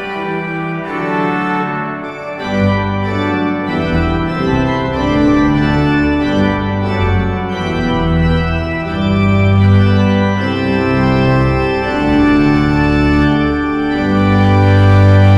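Hauptwerk virtual pipe organ (sampled church pipe organ) playing slow sustained chords. A deep pedal bass comes in about two and a half seconds in, and the loudest chord is held near the end.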